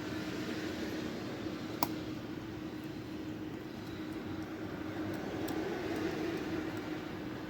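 Steady background hum, with one sharp click a little under two seconds in and a few faint ticks later, from lock-picking tools working the pins of a pin-tumbler lock.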